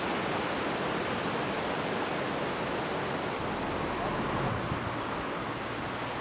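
Steady rushing of a rocky river's rapids.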